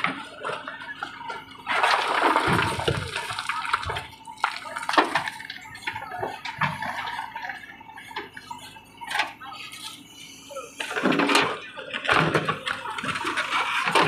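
Backhoe bucket of a JCB 3DX digging into a pile of broken rock and earth, stones grinding and clattering against the steel bucket and each other, with rushing bursts of sliding rubble about two seconds in and again near eleven seconds.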